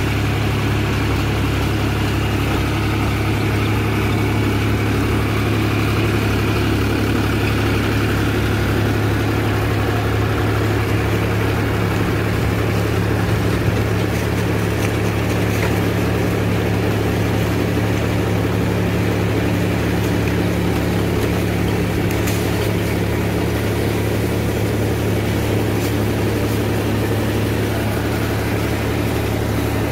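John Deere 5310 tractor's three-cylinder diesel engine running steadily under load while it powers a rotavator mulching banana trash into the soil.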